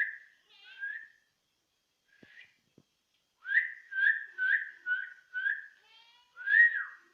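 A person whistling short upward-sliding notes: a few at the start, a pause, then a quick run of five notes about two per second, ending with a longer note that rises and falls.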